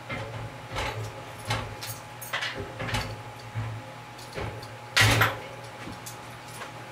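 Irregular scrapes, clicks and knocks of wooden honey frames and tools being handled during uncapping and extraction, the loudest clatter about five seconds in, over a steady low hum.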